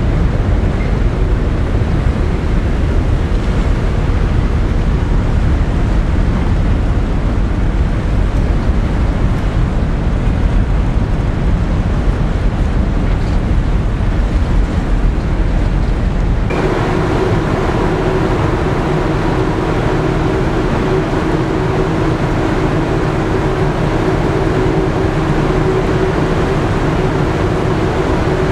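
Wind buffeting the microphone on a large ferry's open deck over the steady rumble of the ship. About two-thirds of the way through the sound changes abruptly to a steadier machinery hum with a clear droning tone.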